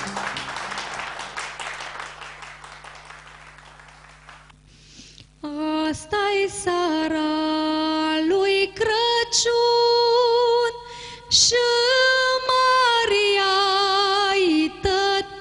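Applause fading away over the first few seconds. Then a woman begins singing a Maramureș folk song solo and unaccompanied, holding long notes with vibrato and ornamented turns.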